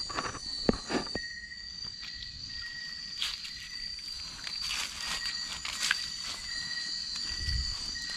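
Insects calling with steady high-pitched trills, several tones at once. A few scattered knocks and a low rumble near the end are heard over them.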